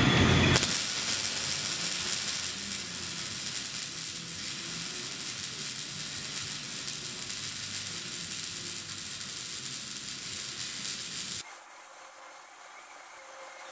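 Drill press boring into an aluminium block held in locking pliers: a steady, high cutting noise as the bit chews through the metal, dropping sharply to a quieter level about three-quarters of the way through.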